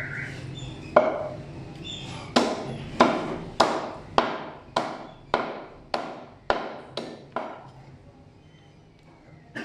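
Meat cleaver chopping mutton into pieces on a round wooden chopping block: about a dozen sharp chops, roughly two a second, that stop a couple of seconds before the end.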